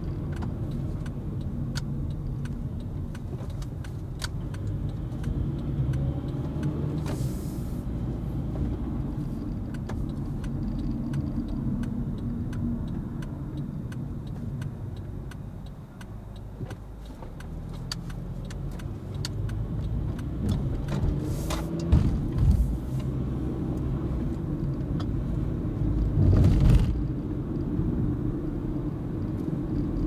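Car engine and tyre noise heard inside the cabin while driving at low speed, with the engine note shifting as it slows, dying down briefly about halfway, then picking up again. A few short thumps come in the second half.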